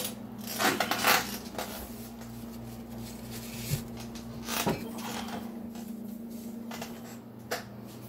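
Handling noise from a phone being moved about: a few short knocks and rubbing scrapes over a steady low hum.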